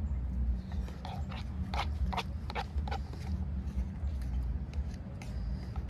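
Close-up chewing of a person eating instant cup noodles: a run of short clicks in the first three seconds, then quieter chewing, over a steady low rumble.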